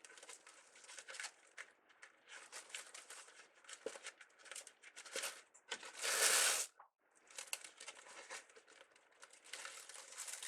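Crinkly plastic craft materials being handled, giving irregular crinkling and rustling, with one louder rushing crinkle lasting about half a second just past the middle.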